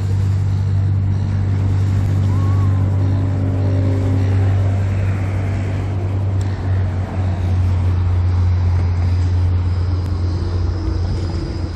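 Steady low engine drone from a river cruise boat working its propeller beneath the bridge, churning the water, with road traffic passing alongside.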